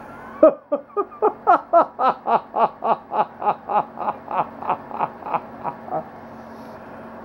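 A man laughing hard in a long run of about twenty rhythmic 'ha' pulses, about three or four a second, loudest at the start and fading out near the end.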